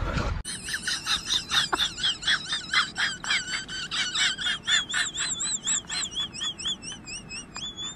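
A man whistling with a round biscuit held to his lips, making bird-like chirps. The chirps come fast, about five a second, and turn into a warbling trill toward the end.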